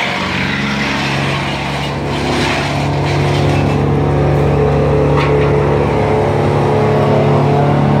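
Tree-service brush chipper's engine running steadily at working speed while branches are fed into it, a deep even drone that grows a little louder from about three seconds in.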